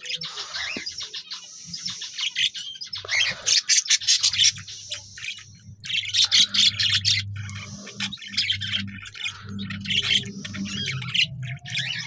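Caged small parrots chirping and squawking in a rapid, busy chatter, over a low steady hum.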